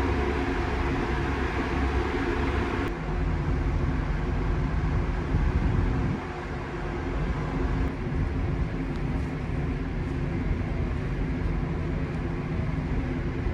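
Steady low drone of a ferry's engines and machinery, with a constant hum and a rushing noise over it; the higher hiss drops away about three seconds in.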